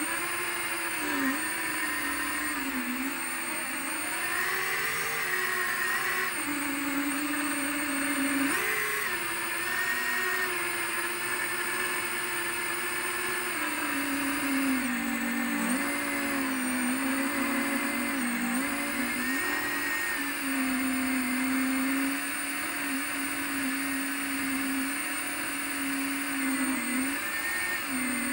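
FPV quadcopter's motors and propellers whining in flight, the pitch dipping and climbing again several times as the throttle changes and holding steadier later on.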